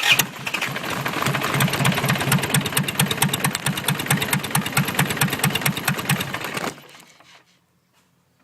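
Isuzu D-Max diesel engine, which begins abruptly with a loud burst and runs with a rhythmic clatter. About seven seconds in it is shut off and dies away.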